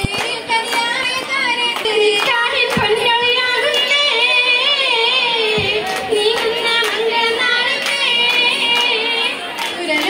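Girls' voices singing an Oppana song, a Mappila wedding song with a wavering, ornamented melody, over steady rhythmic hand clapping.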